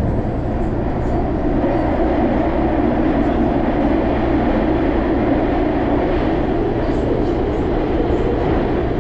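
Interior of a MARTA rapid-transit rail car running on the track: a steady, loud rumble of wheels and running gear with a constant low hum under it, which on this car includes its loud heater. The rumble grows louder about two seconds in as the train runs into a covered section.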